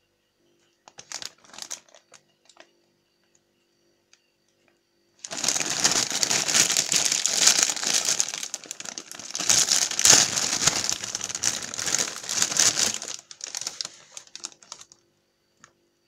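Plastic snack bag crinkling as it is handled and opened. A few short rustles come first, then about eight seconds of loud, continuous crinkling that tapers off near the end.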